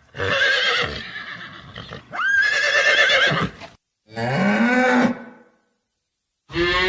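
Horse whinnying twice, high, wavering calls, the second opening with a rising squeal. A shorter, lower call follows about four seconds in, and near the end a deep, drawn-out cow moo begins.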